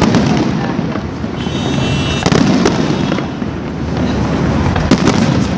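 Fireworks going off: sharp bangs over a continuous rumble and crackle, with a brief high whistling or fizzing tone about a second and a half in.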